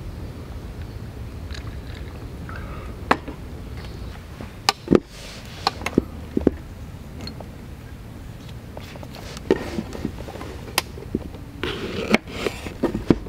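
Sharp clicks and knocks of a knife being handled on a wooden table, then a cluster of taps and scrapes near the end as the knife slices a banana against a wooden cutting board, over a steady low background rumble.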